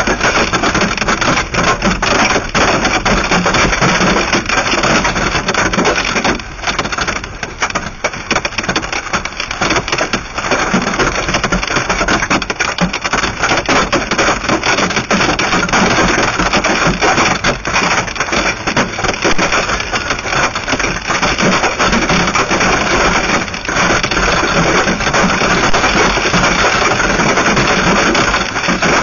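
Hailstones pelting a car's roof and windshield, heard from inside the car as a dense, loud, continuous clatter of impacts that eases briefly about six seconds in and again near twenty-three seconds.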